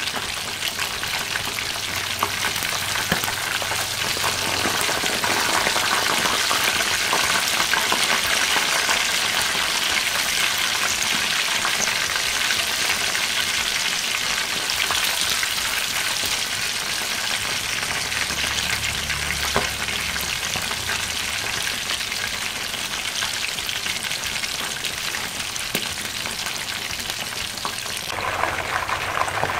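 Chicken halves deep-frying in a wok of hot oil: a steady, dense sizzling crackle as the skin fries crisp.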